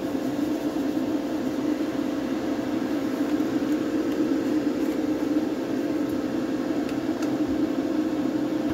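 Extractor fan of a bench-top spray booth running steadily: a low, even hum with a faint steady tone above it.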